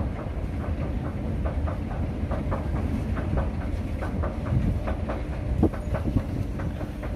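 S-Bahn train running through the station: a steady low rumble with repeated clatter of the wheels.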